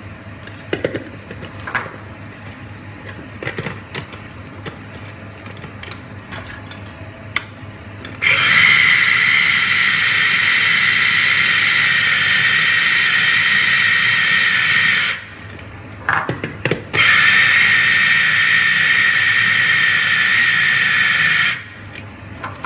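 Electric mini food chopper with a glass bowl and a hand-pressed motor top, chopping a chicken mince kofta mixture. It runs with a loud steady whine twice, about seven seconds and then about four seconds, with a short pause between. Before it starts there are a few light clicks and knocks as the lid and motor are fitted.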